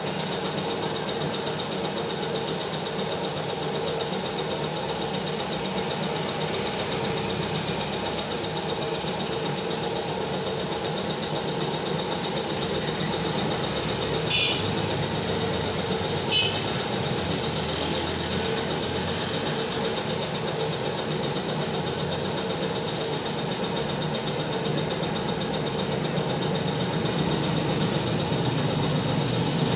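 Air compressor running steadily, with the hiss of a gravity-feed paint spray gun spraying.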